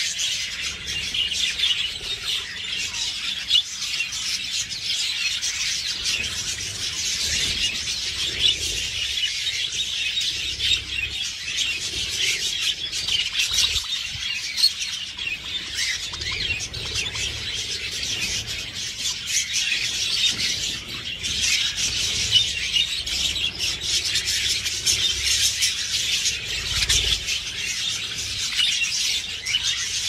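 A flock of budgerigars chattering and warbling without a break: a dense, high twittering.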